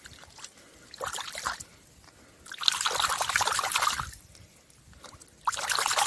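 A hand swishing a stone artifact back and forth in shallow creek water to wash the mud off it, with three bouts of splashing, the longest and loudest in the middle.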